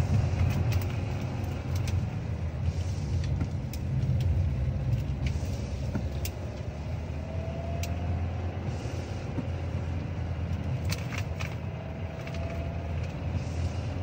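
2024 Kia Sportage Hybrid's 1.6-litre turbocharged four-cylinder engine making a steady low drone under acceleration, heard inside the cabin over tyre noise on a wet road. The noise comes on when the car needs more power and goes away off the accelerator, and the owner finds it terrible.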